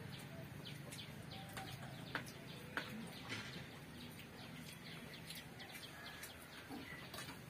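Birds chirping in short, frequent calls, with the odd light click of hands eating from steel plates.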